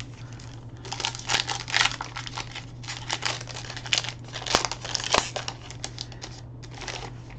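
A foil trading-card pack wrapper crinkling loudly in the hands as it is torn open, in two main bursts with a few sharp crackles.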